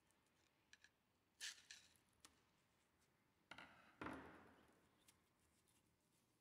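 Faint scrapes and small clicks of a flat screwdriver prying a rusted steel washer off the hub of a grinding stone. About four seconds in there is a louder knock that fades away over about a second.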